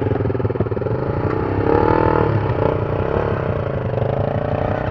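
Enduro motorcycle engine running and being revved, its pitch rising briefly about two seconds in and settling back.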